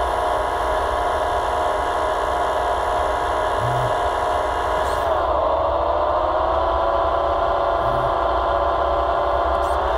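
Electric hydraulic pump of an RC model tractor's forestry crane running with a steady whine while the crane is worked. About halfway through its pitch sags and slowly recovers, as happens when the motor takes on load, and it sags again right at the end; a faint low thump recurs about every four seconds.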